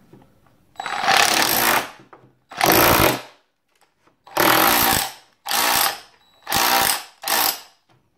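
DeWalt 18V XR cordless SDS hammer drill in chisel mode, hammering a small chisel bit into a plastered wall to cut out a socket back-box recess. It runs in six short bursts of up to about a second each, with brief pauses between.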